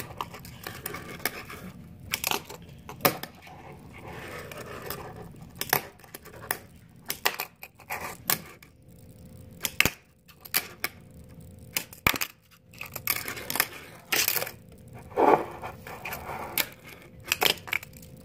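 Tech Deck fingerboard being flicked and landed on a hard counter: an irregular string of sharp clacks and taps from the board and its small wheels, with short stretches of scraping or rolling between them.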